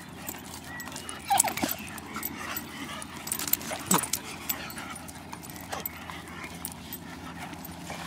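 Three dogs play-fighting, a Vizsla puppy wrestling with a Weimaraner, with short, sharp dog vocalizations. The loudest come about a second and a half in and again around four seconds in.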